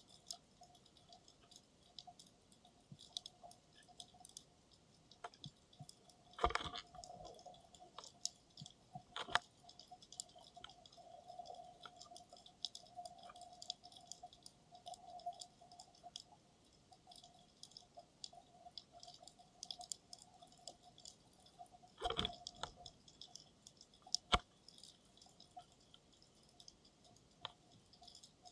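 Underwater ambience on the seabed, heard through a camera's dive housing: a steady crackle of faint clicks over a faint steady hum, with a few louder knocks about six, nine, twenty-two and twenty-four seconds in.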